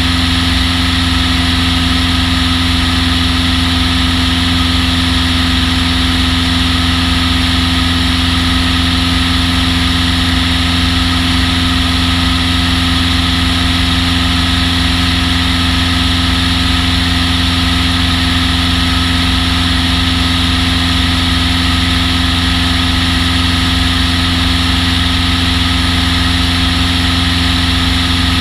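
Long-EZ's pusher piston engine running steadily, holding one constant pitch throughout with a hiss of rushing air over it.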